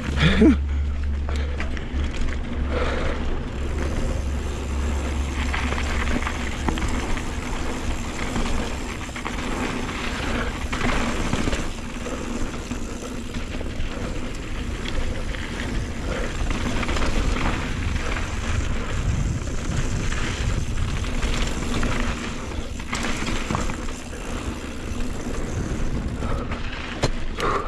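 Scott Ransom full-suspension mountain bike running fast down a rough dirt trail, heard from a chin-mounted action camera: steady wind rush on the microphone and tyre noise, with frequent knocks and rattles from the bike over bumps. A heavy low wind rumble fills the first several seconds, then eases.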